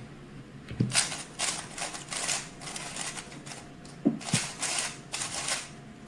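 A 3x3 speedcube (Rubik's cube) being turned at high speed through a solve. It makes dense runs of rapid plastic clicking in spurts with short pauses, starting about a second in.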